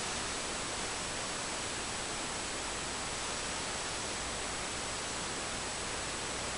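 Steady, even hiss with a thin high whine: the recording's own noise floor, camera microphone and electronics hiss, with no other sound on top.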